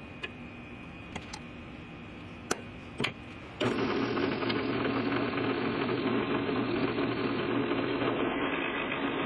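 A few light clicks of steel pieces being handled, then, about a third of the way in, a drill press starts suddenly and runs steadily. Its twist drill is set to enlarge a hole in a steel gusset plate clamped to square steel tube.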